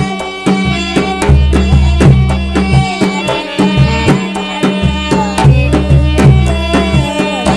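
Rajasthani devotional folk music: a hand drum beating steadily under a melody line with sustained and gliding notes.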